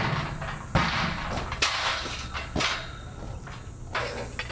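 Tubular steel gate clanking and scraping as it is handled, with three sharp metal knocks in the first three seconds.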